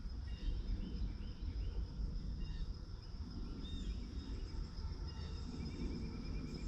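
Outdoor ambience: insects keep up a steady high-pitched drone while birds give scattered short chirps, over a constant low rumble.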